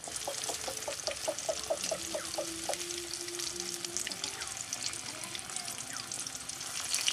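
Flour-coated chicken pieces deep-frying in hot refined white oil in a karai, a steady crackling sizzle. A quick run of about a dozen short chirps sounds over the first three seconds.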